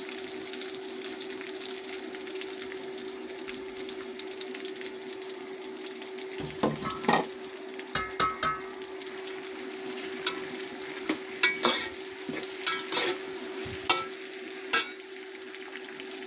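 Sliced onions sizzling in hot cooking oil in an aluminium pot, a steady hiss. From about six seconds in, a metal spoon stirring them knocks and scrapes against the pot a dozen or so times. A steady low hum runs underneath.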